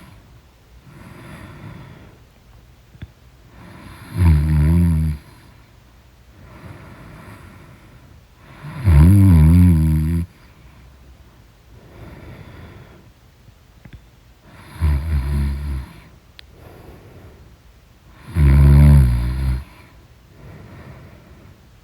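A person snoring in deep sleep: four loud, low snores about every four to five seconds, each lasting about a second, with softer breathing between them.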